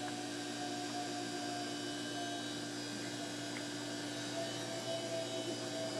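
Steady hum with an even background hiss and no distinct events: swimming-pool background ambience.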